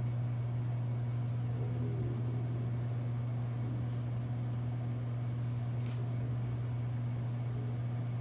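Room tone: a steady low machine hum under an even hiss of air, with faint distant voices about two seconds in.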